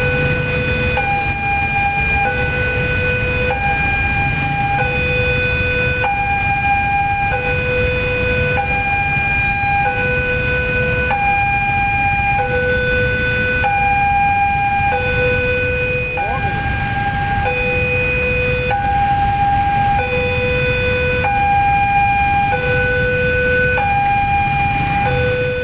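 Two-tone electronic warning alarm alternating between a low and a high note about every second and a quarter, over a steady low rumble.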